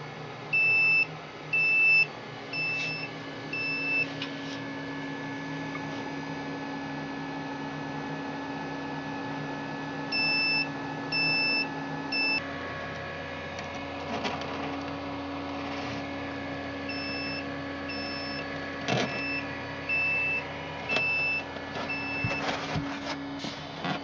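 Repeated high electronic beeps in groups, four, then three, then about six, over a steady electrical hum from the running power supply and electronics. The hum changes about halfway through, and a few clicks come near the end.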